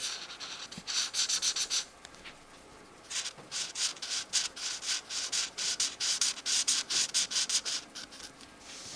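Felt-tip marker scratching across colouring-book paper in rapid back-and-forth strokes. The strokes come in two spells, split by a pause of about a second, near the two-second mark.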